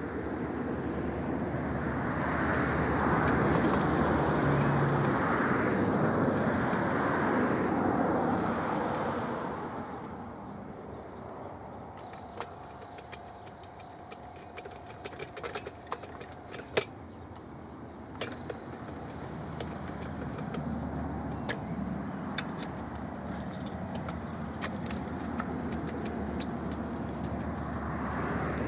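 UTOPUS anchor-traction test rig working its way down a loose gravel-and-soil slope: steady mechanical running noise that swells over the first several seconds and eases off about a third of the way in. In the quieter middle stretch there are scattered sharp clicks of stones and a faint steady whine, and then the running noise builds again near the end.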